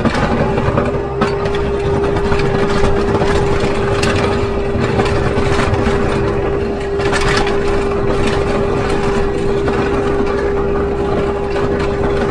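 Kubota MX5400 utility tractor's diesel engine running steadily with a constant whine over it, while the rear blade scrapes and pushes snow and gravel along the driveway.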